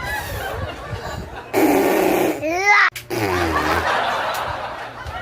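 Laughter, with high, swooping laughing voices, breaking off abruptly about three seconds in and then resuming.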